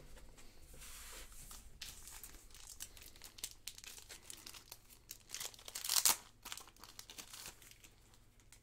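Rustling and crinkling as a stack of baseball cards is handled, with scattered small clicks and a louder crackle about six seconds in.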